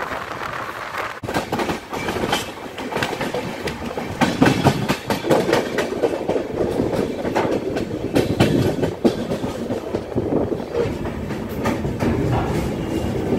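Passenger train coach wheels clattering over rail joints and points, with a steady rush of moving air through an open coach door. The clicks come fast and irregularly, busiest in the second half.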